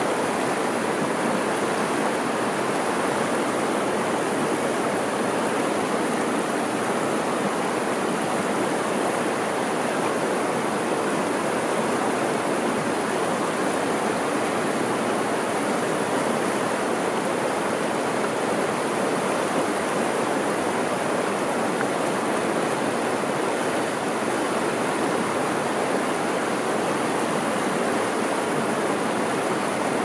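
Shallow river rushing over rocks in a riffle: a steady, unbroken rush of water.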